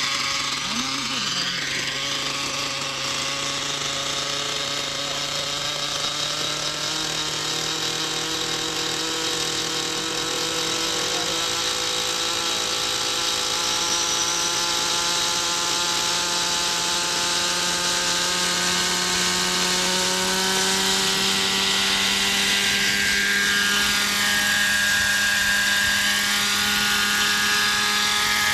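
Webra .50 two-stroke glow engine of a homemade coaxial radio-controlled helicopter running steadily, with the buzz of its spinning rotors. The pitch rises slowly as the engine spools up the rotors toward lift-off.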